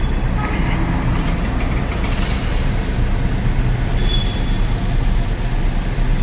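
Steady low engine and road rumble heard from inside a car's cabin as it moves slowly through city traffic. A brief faint high tone comes about four seconds in.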